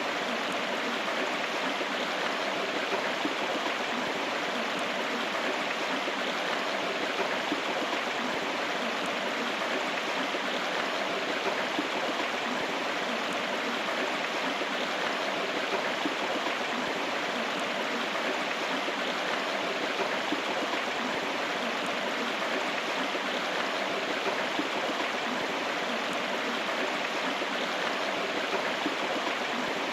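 River water flowing steadily over rocks, a continuous rushing and babbling with no change in level.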